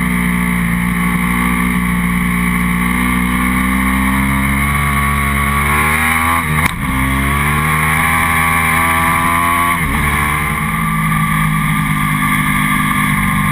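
Motorcycle engine pulling hard at speed, its pitch climbing steadily, then dropping sharply at an upshift about two-thirds of the way in and again about three seconds later before holding steady. Wind rushes over the microphone underneath.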